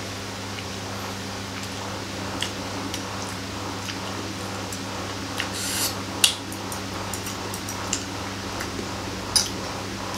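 Metal fork and spoon clinking and scraping against a plate of noodles: a scattering of sharp clinks, the loudest about six seconds in and another strong one near the end, over a steady low hum.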